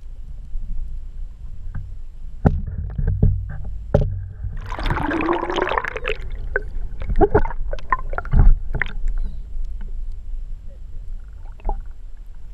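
Muffled underwater sound picked up by a GoPro held under water on a pole from a kayak: a steady low rumble with scattered knocks and bumps, and a louder rush of noise about five seconds in.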